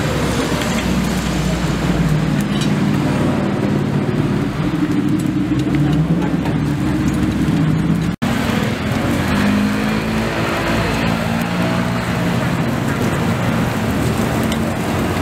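Street traffic ambience: vehicle engines running and road noise, steady throughout, with a momentary dropout about eight seconds in.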